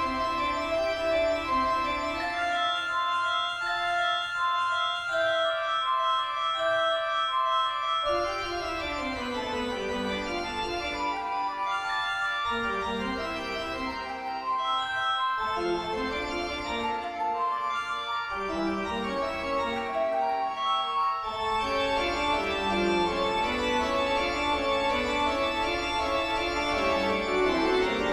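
Eerie instrumental horror background music with held, overlapping notes moving in a slow melody. The deep bass comes and goes, then fills in for the last few seconds.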